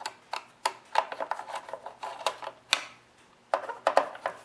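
A Torx T27 driver backing the screws out of a chainsaw's plastic top cover: a quick, irregular run of sharp clicks and ticks from the driver and the screws against the cover.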